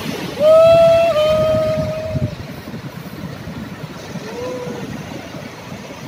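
A person's long high shout, held for about two seconds with a small drop in pitch partway, then a shorter, fainter call near the end. Under it is a steady rush of heavy surf and wind.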